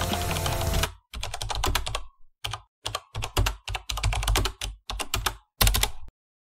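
Background music cuts off about a second in, followed by short bursts of rapid clicking like typing on a computer keyboard, each burst broken off by abrupt dead silence; the clicking stops shortly before the end.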